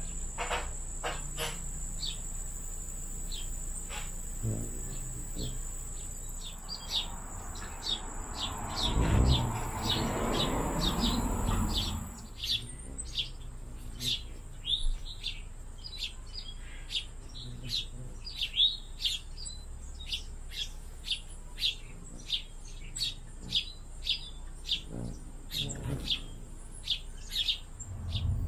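Small birds chirping over and over in short, high chirps, about one to two a second through most of the stretch. A steady high insect trill runs under them until about midway, and a swell of rushing noise rises and fades between about a third and halfway through.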